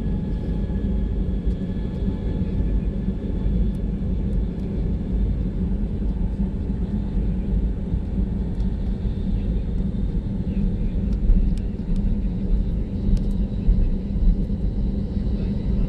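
Inside the cabin of an Airbus A320-200: steady low rumble of the jet engines and rolling wheels as the airliner moves onto the runway for takeoff, with a few faint clicks and rattles.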